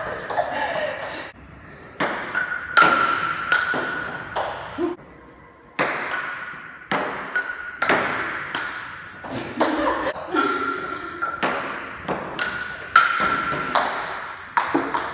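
Table tennis rally: the celluloid ball clicks sharply off the paddles and the table, each click with a short ring, at an uneven pace with a couple of brief pauses.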